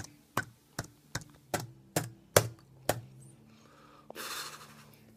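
Slow typing on a computer keyboard: about eight separate keystrokes, a little more than two a second, over the first three seconds. A short hiss follows about four seconds in.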